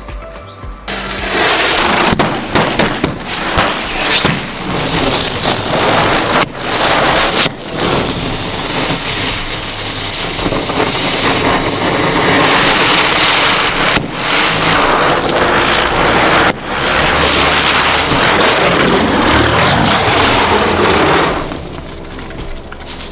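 A lit firework burning with a loud, steady hissing rush for about twenty seconds, with a few brief dips, fading out near the end.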